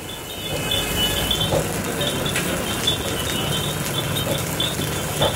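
Steady roar of a high-pressure LPG wok burner under a large steel wok of fried rice, with a low hum and a faint, repeating high beep in the background.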